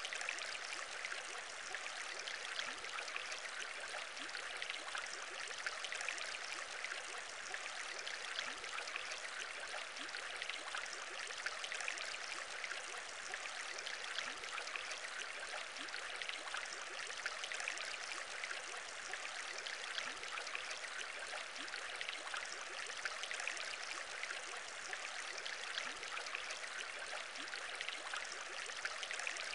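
Aquarium air bubbles bubbling in water, steady and unbroken, with many small pops and short rising blips.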